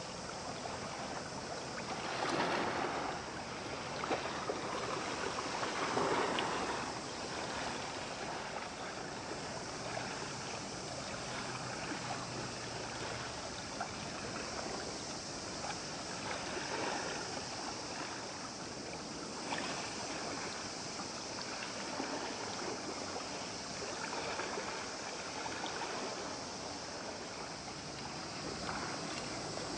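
Shoreline ambience of water washing and wind, a steady rush that swells louder about two and six seconds in.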